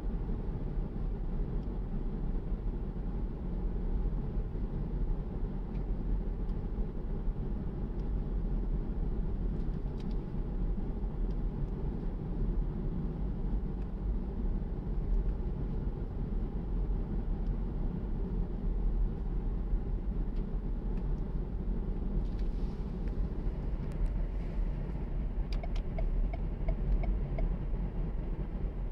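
Steady low rumble of a car's road and engine noise heard from inside the cabin while driving, with a brief run of faint, evenly spaced ticks near the end.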